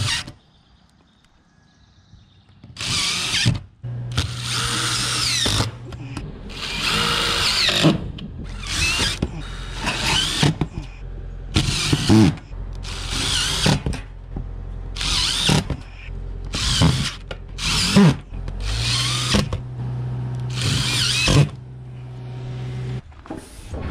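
Cordless impact driver driving screws through the panel clips of a standing seam metal roof into the roof deck, in a string of short bursts, each a second or so long, that begin about three seconds in.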